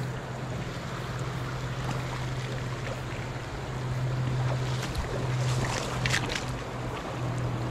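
Steady rush of flowing creek water over a steady low hum, with a few brief crackling sounds about five to six seconds in.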